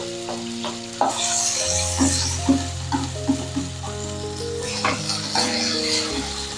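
Chopped green tomatoes sizzling in hot oil in a nonstick wok while a wooden spatula stirs them, knocking against the pan now and then. Background music with held notes plays underneath.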